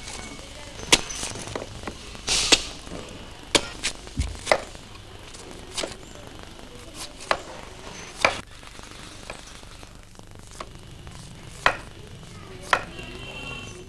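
A knife chopping away the husk of tender coconuts: about a dozen sharp strikes at uneven intervals, roughly one a second.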